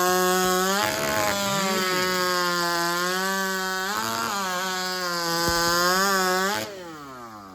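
Large-displacement two-stroke racing chainsaw (over 90cc class) running at full throttle, its pitch sagging briefly twice as it works through the cut. About seven seconds in the throttle is released and the engine winds down, falling in pitch.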